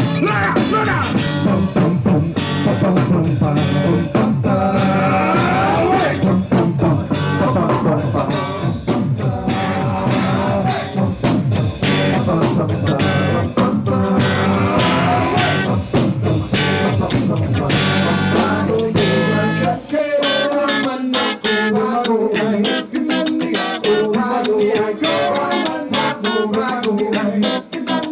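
A live world-beat rock band playing through a PA at a soundcheck: drums, bass, guitar and singing. About two-thirds of the way through, the bass and low end drop out suddenly, leaving the guitar and higher parts playing on.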